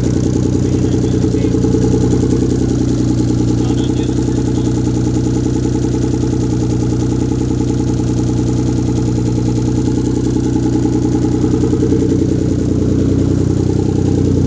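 1997 Mitsubishi 3000GT VR4's rebuilt 6G72 twin-turbo V6 running steadily after its first start-up. With no downpipe fitted it sounds like butt.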